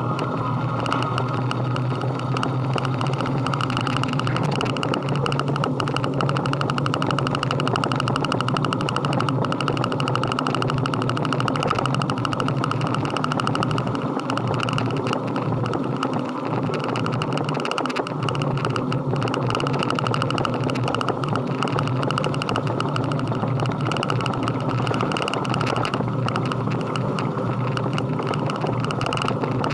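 Motor vehicle engine running steadily with road and wind noise, at an even level with no sudden events.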